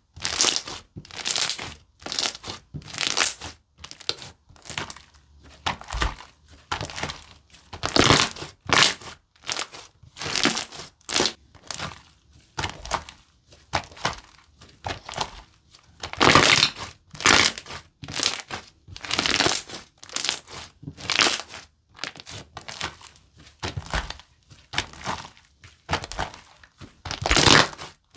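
Moong Slime's Crouton Cookie Chip slime being squeezed and pressed by hand over and over, about one to two squishes a second, each a short noisy burst; a few squishes are louder, about halfway through and near the end.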